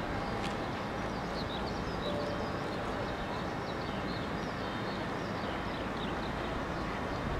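Steady distant rumble of a Boeing 747-400F's jet engines at taxi power, heard across an airfield, with small birds chirping repeatedly over it.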